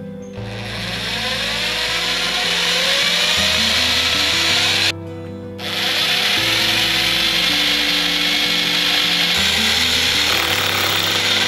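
780 W rotary hammer drilling holes into a masonry wall for wall plugs: a loud, steady run of drilling, a short pause about five seconds in as one hole is finished, then drilling again into the next mark.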